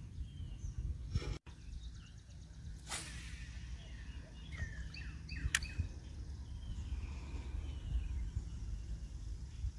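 A fishing cast with a spinning rod: a swish and line running off the reel about three seconds in, then a sharp click a couple of seconds later. A steady low rumble underlies it, with a few bird chirps.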